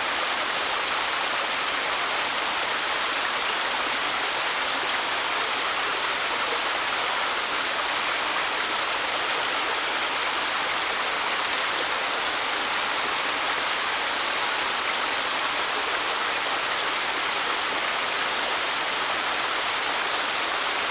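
Small waterfall, about 3 m high, splashing into a mountain stream, with water rushing steadily.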